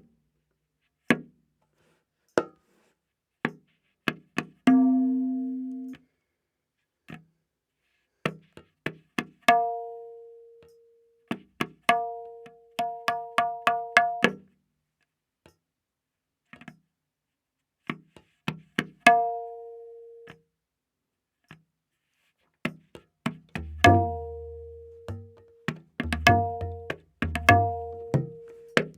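Tabla playing a slow vilambit ektaal theka, the dayan tuned to A#. Sparse strokes fall with silent gaps between them, and some dayan strokes ring on at a steady pitch. Deep bayan bass strokes come in about three-quarters of the way through.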